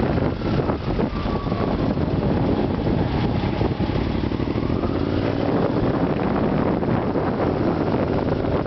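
Yamaha Super Ténéré parallel-twin motorcycle engine running steadily under way.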